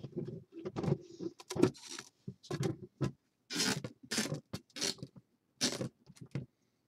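Clear plexiglass panels of a Green Stuff World display cover being handled and pressed together, the plastic scraping and clicking in short irregular bursts as the last corner's tabs are worked into their slots.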